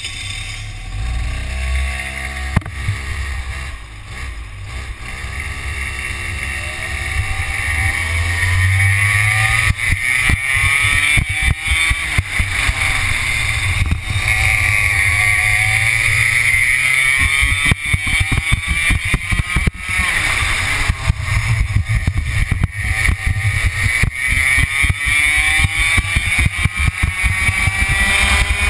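Racing kart's two-stroke engine, just started, pulling away and then running at race speed. Its pitch climbs on the straights and drops for the corners several times over.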